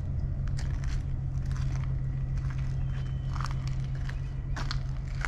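Footsteps scuffing and crunching on a paved lane, a dozen or so irregular short clicks, over a steady low hum.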